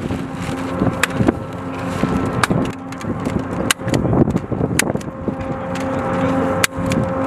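Hand staple gun clacking as staples are driven through paper targets into their backing, a sharp clack every second or so. Behind it are wind noise and a steady hum.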